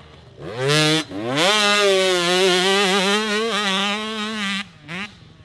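Dirt bike engine revving hard. Its note rises, breaks off briefly about a second in, then climbs again and holds a high, slightly wavering pitch for about three seconds before the throttle comes off.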